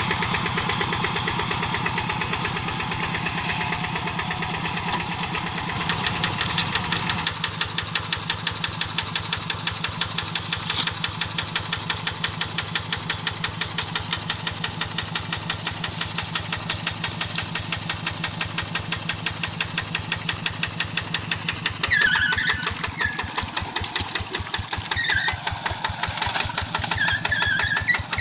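Quick G1000 hand tractor's single-cylinder diesel engine running with a steady chugging beat. The beat changes about seven seconds in. Short high squeaks come through in the last few seconds.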